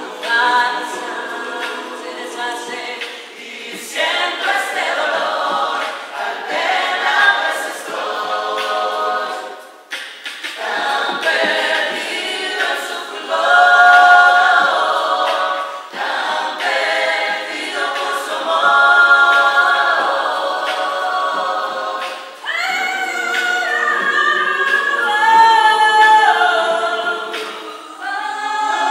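A rondalla choir singing in harmony, with a woman's voice leading. The phrases break off briefly about ten seconds in and again a little after twenty seconds.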